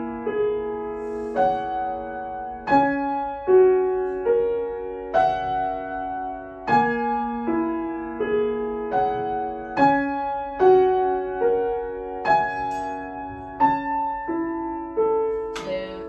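A grand piano played at a steady, moderate pace: a flowing line of single notes and broken chords, each struck note ringing on under the next, in a repeating melodic pattern.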